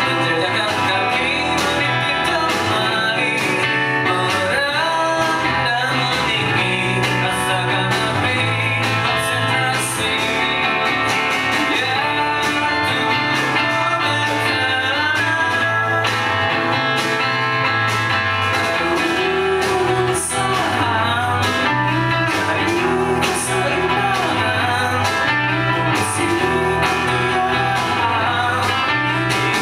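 Live band performing a song: a male voice singing over strummed electric guitars, bass and drums.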